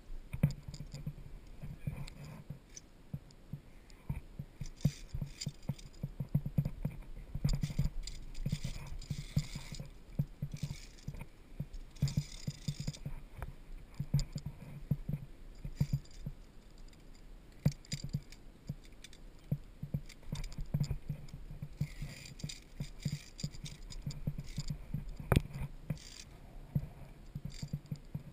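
Via ferrata climbing gear in use: metal carabiners clinking and scraping along the steel safety cable, with frequent dull knocks and scuffs as the climber moves on the rock.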